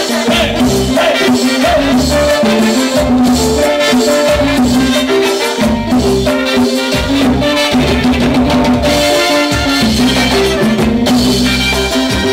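Live band playing loud Latin dance music without vocals, with trumpets, congas, keyboard and bass guitar over a steady beat.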